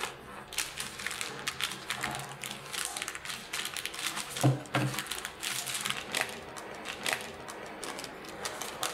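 Parchment paper crinkling and rustling as hands roll a sponge cake up inside it and press the roll tight. Two soft, low knocks come about four and a half seconds in.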